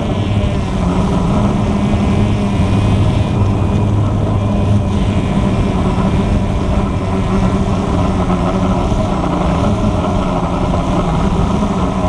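Walkera QR X350 Pro quadcopter's motors and propellers running steadily in flight: a loud, constant buzz over a low hum.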